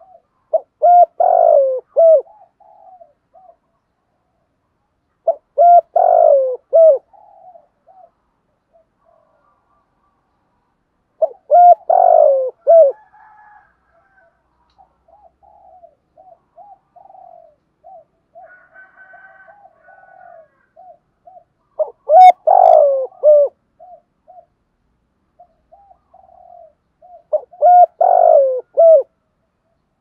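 Spotted dove cooing: five loud, multi-note coo phrases about every five or six seconds. Between them come soft, short coos in quick strings.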